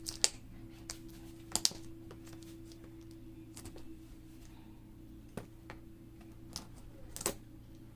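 Scattered light clicks and rustles of kit packaging being handled, a few sharp ones among softer ones, over a steady low electrical hum.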